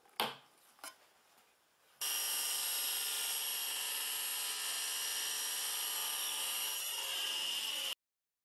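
Two sharp clicks from a toggle clamp being set, then a table saw running with a steady high whine for about six seconds, starting and stopping abruptly.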